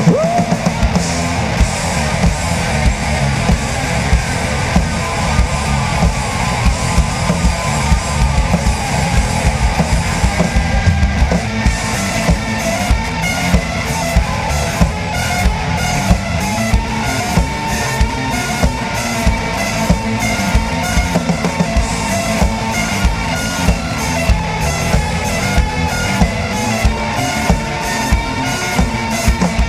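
Rock band playing an instrumental passage with electric guitar, bass and drum kit, no singing. From about ten seconds in, the drums strike hard and regularly, about twice a second.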